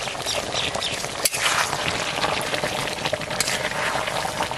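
Chicken curry boiling in a kadai, a steady bubbling hiss with a sharp click about a second in. A spoon stirs the pot near the end.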